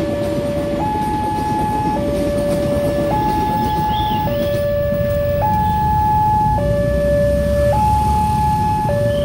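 A railway level-crossing warning alarm sounds a two-tone electronic signal, switching between a low and a high tone a little more than once a second. Under it runs the low rumble of an electric commuter train passing over the crossing.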